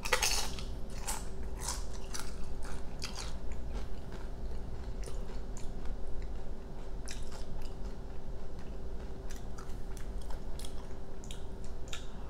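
Close-up eating sounds: a lime tortilla chip bitten with a loud crunch at the start, then chewing with crisp crackles that come and go.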